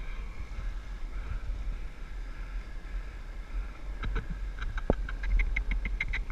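Wind rumbling on the microphone of an action camera carried on a cantering horse. In the last two seconds there is a quick, even run of light ticks, about five a second.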